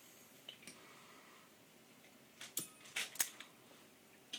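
Quiet room tone with a few light clicks and clacks of small hard objects being handled, clustered about two and a half to three and a half seconds in.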